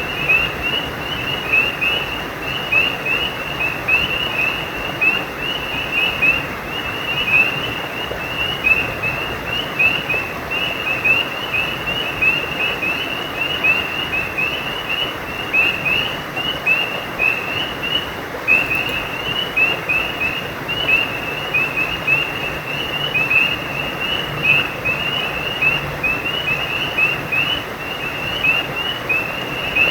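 A chorus of frogs calling, many short high chirps repeating rapidly without a break, over the steady rush of a stream.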